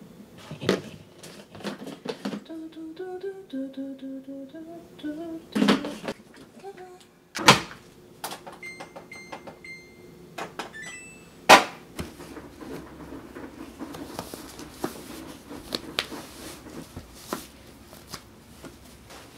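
A woman hums a short tune among a few thuds, then a Samsung laundry machine's control panel beeps as its buttons are pressed, a rising pair of beeps near the end of the run, followed by a sharp click.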